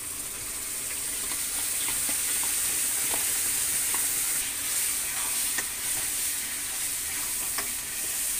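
Ground onion paste sizzling steadily in hot oil in a kadhai, with light clicks and scrapes of a spoon stirring it through the pan.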